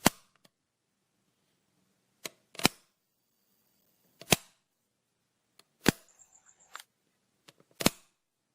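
Light switch being flicked: a series of sharp clicks, five loud ones spaced about a second and a half to two seconds apart, most with a softer click just before.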